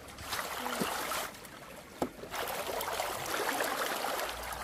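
Splashing water as stream water is thrown by hand over a heap of freshly dug sweet potatoes to wash them. It comes in two spells with a short lull about halfway, and a single short knock about two seconds in.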